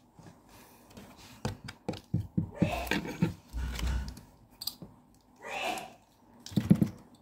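Plastic action-figure parts being handled: irregular small clicks, taps and rattles of hard plastic, with a few soft breaths or murmurs in between.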